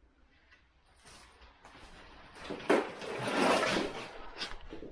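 Household objects being handled: a few light clicks, then a scraping slide with knocks lasting about a second and a half, like a drawer or box being pulled along.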